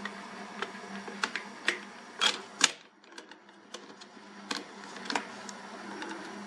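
Sharp clicks and knocks of a replacement run capacitor being handled and pushed into its mount in a garage door opener, louder in the first half and lighter taps after, over a steady low hum.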